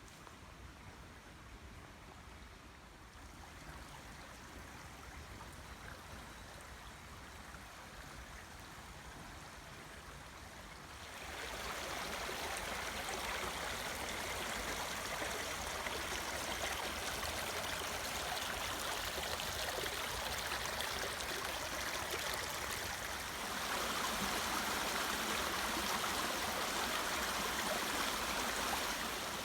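Small woodland brook running, an even rushing of water. It is faint at first, then gets plainly louder about a third of the way in and again a little louder near the end. The brook is running slightly higher than normal after recent rain.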